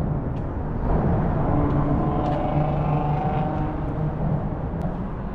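A motor vehicle's engine hum swelling and then easing over a steady outdoor rumble, with faint high ticks.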